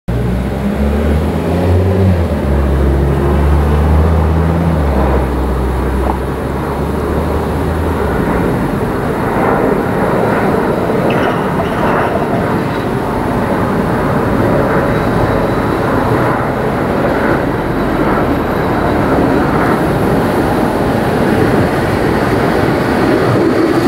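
Bombardier Cobra low-floor tram approaching along the street rails, its rolling noise building from about nine seconds in as it draws close. A low steady rumble fills the first several seconds, then stops.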